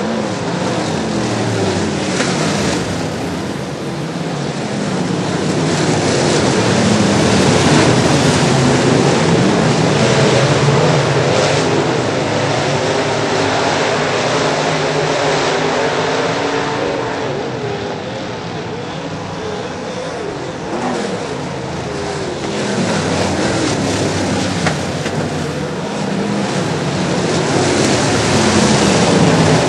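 Several dirt-track modified race cars running at speed together, their engines gliding up and down in pitch as they pass. The sound swells and eases as the pack comes around and moves off.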